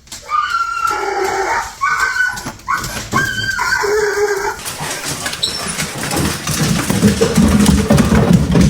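Dog whining: several drawn-out, wavering whines in the first half, then a rough, noisy stretch that grows louder toward the end.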